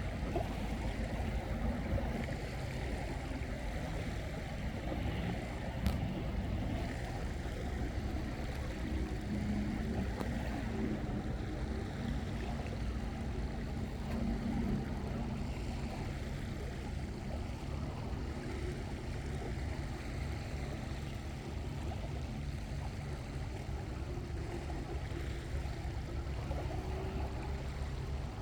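Steady seaside ambience: waves and wind, with a heavy low rumble of wind on the microphone and one sharp click about six seconds in.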